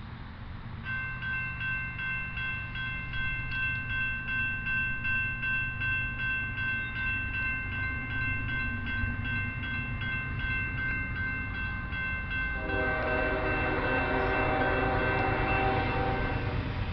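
Grade-crossing warning bell ringing in steady strokes, about two a second, over the low rumble of an approaching diesel freight train. About three-quarters of the way in, the lead locomotive's horn sounds for about four seconds for the crossing.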